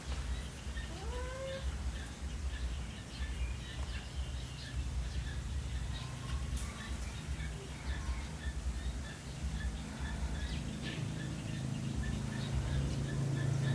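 Birds chirping, with a few rising calls early on and then an even run of short high chirps, about two or three a second, over a steady low rumble that grows louder near the end.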